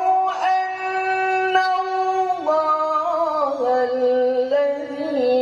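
A man reciting the Qur'an in the melodic tilawah style, sustaining long chanted notes. A steady higher note steps down in the second half to a lower held note, with ornamental wavers at the turns.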